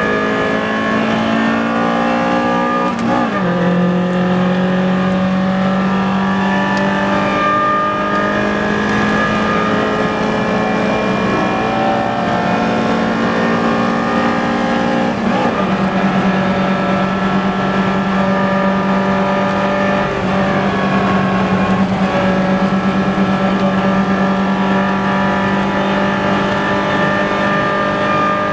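Four-cylinder car engine at full throttle, heard onboard at racing speed. It climbs in pitch, changes up about 3 s and again about 15 s in, then holds high revs flat out.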